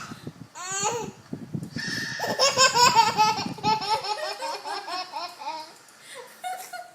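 Small child laughing hard in a run of high-pitched bursts. The laughter is strongest in the middle and then tapers into smaller giggles.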